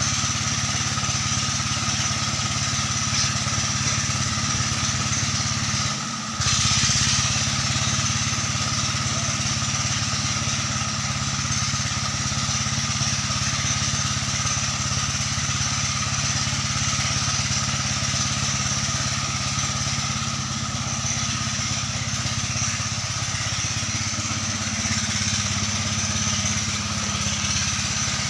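Engine of a river sand-suction pump running steadily at a constant speed, with a brief dip about six seconds in.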